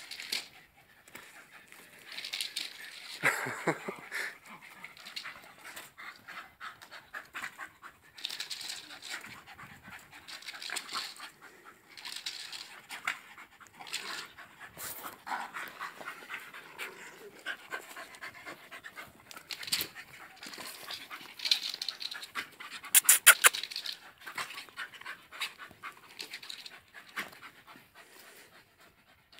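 Terrier-type dogs panting hard while scrabbling their claws against a tree trunk, with repeated short scraping and scratching clicks. A quick run of loud, sharp scrapes about 23 seconds in is the loudest moment.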